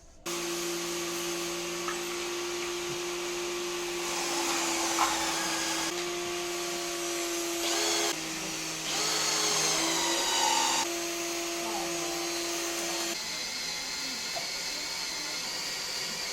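An electric power tool's motor running with a steady whine and a hiss, the sound jumping abruptly every few seconds to a slightly different pitch and loudness.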